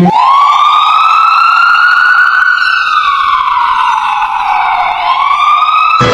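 Wailing emergency siren: it starts abruptly with a quick upward sweep, holds high, slowly falls over about three seconds, then sweeps up again near the end.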